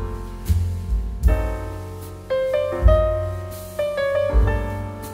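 Background piano music: notes struck and left to die away over low bass notes.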